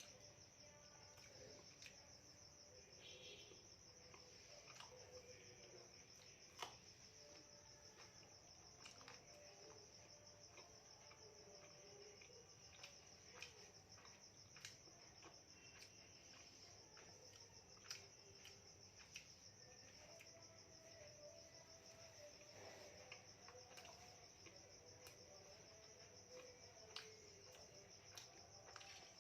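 Crickets chirping faintly and steadily, a continuous high-pitched trill, with occasional faint clicks.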